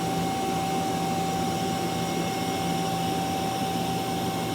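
Mazak QTN-250MS CNC turning center running as its sub-spindle W axis is traversed: a steady machine hum with a constant high whine, and a lower hum that cuts in and out several times.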